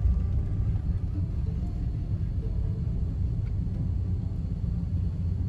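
Steady low rumble of road and engine noise heard inside the cabin of a moving vehicle.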